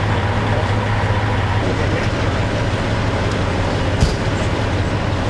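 Fire engine's diesel engine idling, a steady low drone with a constant hum. A single short knock comes about four seconds in.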